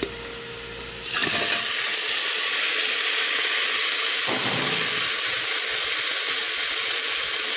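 Diced raw beef sizzling loudly in hot oil on browned onions, a steady hiss that starts suddenly about a second in as the meat goes into the pot.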